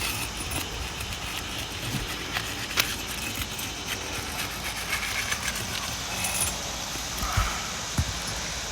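Scattered metal clinks and small knocks of hand tools working fasteners loose on a shingle roof, the sharpest click about three seconds in, over a steady outdoor hiss.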